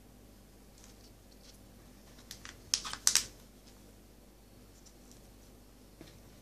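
A quick cluster of sharp plastic clicks and crackles a little under three seconds in, from a thin disposable plastic cup being handled while potting soil is spooned into it, with a few fainter ticks around it and one small click near the end.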